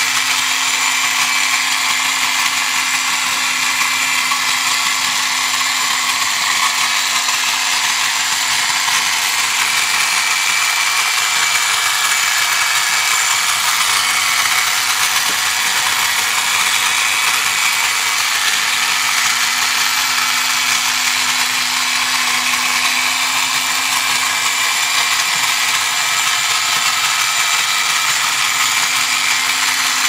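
Toy desktop robot vacuum running: its small 3-volt motor spins the fan up through a gear train with a steady, high whirr and a constant low hum underneath. The robot drives across the table the whole time.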